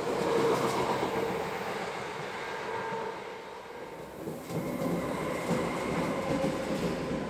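Electric trains on a curved line. A red-and-white passenger train runs past with a steady rumble and a faint held whine. After a dip about four seconds in, the rumble of a second train builds as it approaches.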